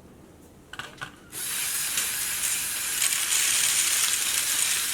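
Lego Technic bucket wheel excavator starting up about a second in, after a few small clicks. Its Power Functions motors and plastic gear train then run with a steady, high-pitched mechanical whir and rattle.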